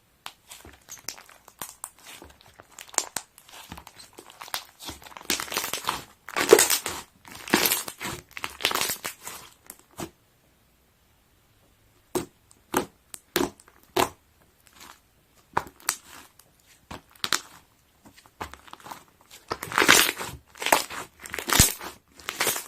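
Crinkling and rustling handling noise in irregular bursts, with sharp clicks. The sound drops out completely for about two seconds near the middle.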